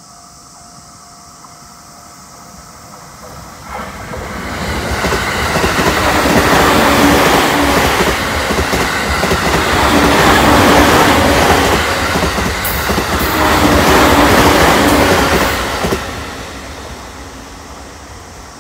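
A long JR East suburban electric train in green-and-orange stripes passes close by at speed. Its run-by swells about four seconds in, stays loud for about ten seconds as the cars go past, then falls away quickly and fades as the train recedes.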